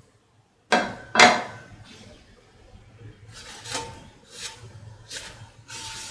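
Two sharp knocks about a second in, then a cloth rubbing across the empty frying pan in several short wiping strokes, clearing leftover batter bits between pancakes.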